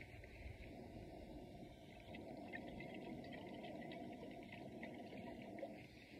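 Water pouring from a plastic gallon jug into a stainless steel pot: a steady low splashing fill.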